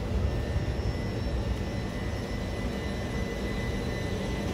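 Two coupled Class 376 Electrostar electric multiple units departing from a station platform: a steady low rumble with thin, steady high whining tones above it.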